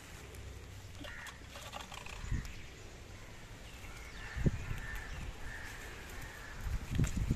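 Hand plucking Malabar spinach leaves from a potted plant: soft rustling and snapping of leaves and stems, with a few low bumps, the loudest about halfway through and at the end. A bird calls in the background, a run of short calls in the second half.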